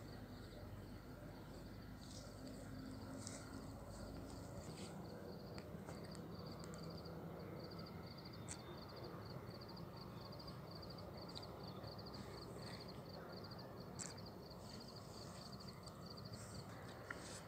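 A cricket chirping in short, high trills, about two a second, faint over a low background hiss.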